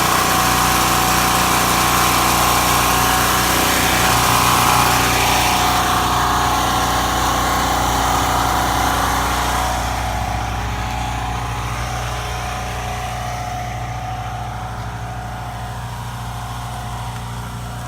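Champion portable generator's engine running steadily. It grows somewhat quieter about ten seconds in.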